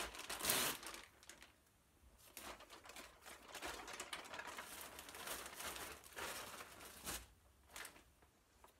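Mail package being opened by hand: packaging crinkling and rustling in irregular bursts, with a louder tearing rustle about half a second in.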